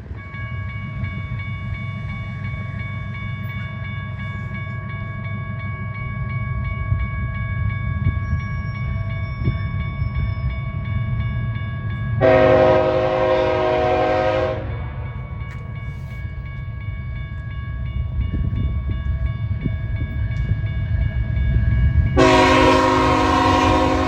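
Train passing with a steady low rumble while the locomotive horn sounds two long blasts, one about halfway through and another starting near the end.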